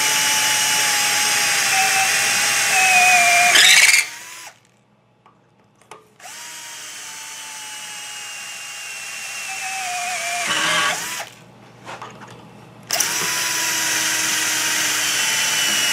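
Cordless battery drill drilling through the drill guide holes of a panel-punch die set into a metal panel, in three runs. Its motor whine sags in pitch while the bit cuts and rises briefly just before each stop, about four and eleven seconds in, with short pauses and small clicks between runs.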